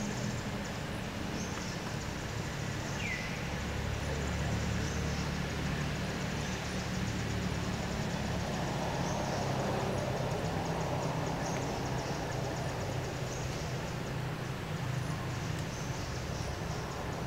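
Steady outdoor background noise with a low droning hum, and one short chirp about three seconds in.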